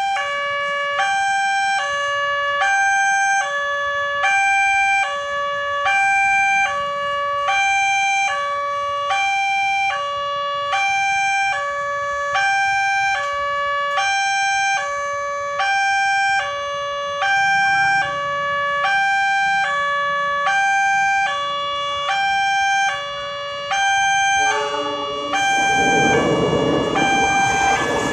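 Level-crossing warning siren from the horn loudspeaker of a Nataya Putra barrier system, sounding a two-tone hi-lo call that switches pitch about every 0.7 seconds. Near the end, a loud rushing rumble joins in over it.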